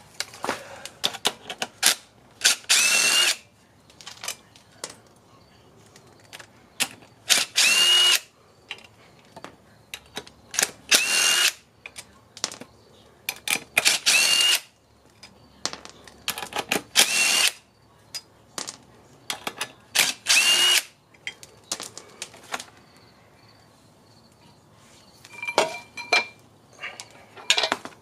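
Handheld power tool spinning in about six short bursts of roughly a second each, each ending with a brief rising whine, as bolts are run out during clutch and flywheel removal. Light clicks and clinks of metal parts come between the bursts.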